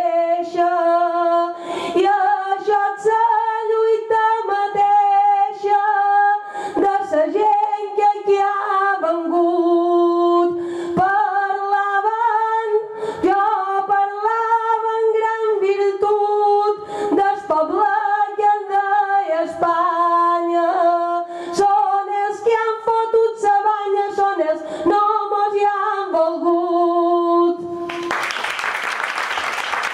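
A woman singing a Mallorcan glosa unaccompanied into a microphone, holding long notes that bend and waver between short breaths. Near the end the singing stops and applause breaks out.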